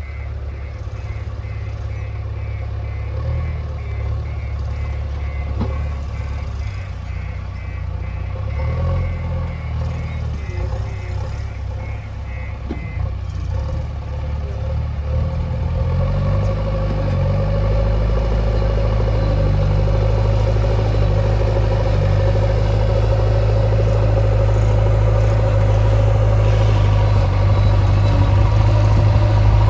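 Diesel engine of a JCB 3DX backhoe loader running, with a reversing alarm beeping steadily for about the first thirteen seconds. Partway through, the engine note rises and settles into a louder, steadier drone under load.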